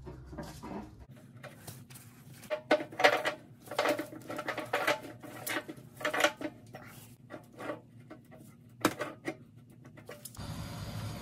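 Irregular knocks and clatters of hard objects, a dozen or so over several seconds, cutting off suddenly near the end.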